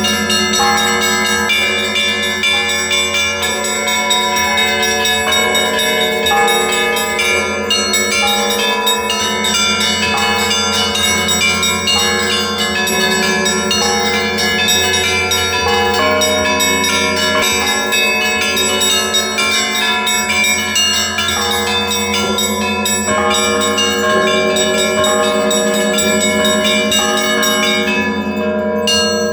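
Church bells ringing continuously: many bells of different pitches struck in quick succession, their tones overlapping, over a steady deep hum from the largest bells.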